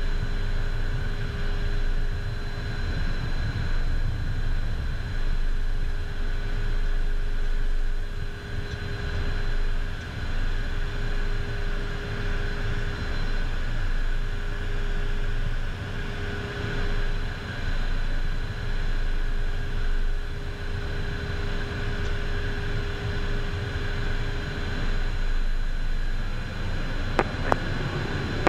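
Beechcraft Premier 1A's twin Williams FJ44 turbofans running at taxi power, heard inside the cockpit: a steady low rumble with a constant whine on top.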